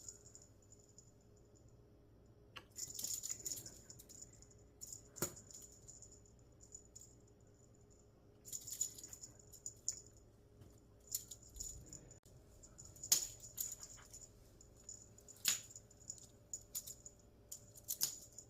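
A small jingle bell jingling in irregular shakes and bursts during a cat's play with a fishing-rod teaser toy, with a few sharp taps among them.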